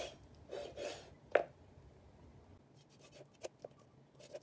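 Cleaver cutting through raw chicken on a plastic cutting board: two short rasping strokes of the blade in the first second, a sharp knock just over a second in, then a few faint ticks.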